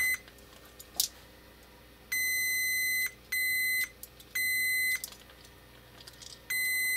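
A digital multimeter's continuity beeper sounds a steady high beep on and off, about half a second to a second at a time. Each beep marks the contacts of the Siemens 3TB41 contactor's third pole closing as its plunger is pressed hard by hand. A single sharp click comes about a second in.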